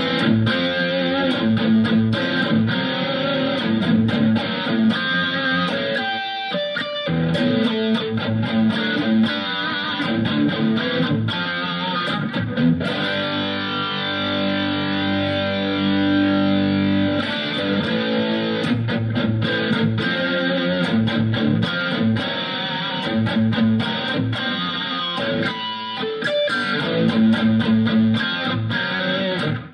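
Distorted electric guitar played through a Sonicake Matribox II Pro multi-effects processor on a high-gain heavy metal preset with slapback delay, flanger and a tight noise gate. Choppy riffing cuts off sharply between notes, and a chord is held for a few seconds about halfway through.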